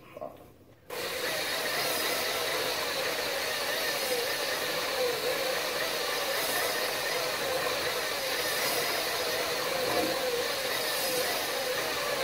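Electric drill spinning a cylinder hone inside the bore of a Zongshen 250cc dirt bike cylinder, starting suddenly about a second in and running steadily with a wavering whine. The hone's stones scrape the bore wall, taking the shine off and cutting down the lip at the top of the bore.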